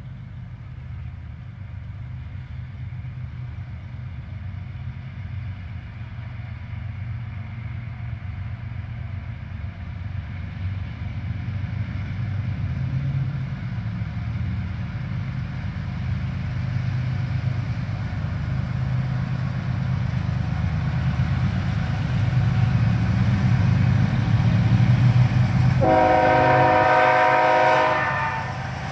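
CSX freight train's diesel locomotives approaching, their low engine rumble growing steadily louder. Near the end the locomotive horn sounds one blast of about two seconds.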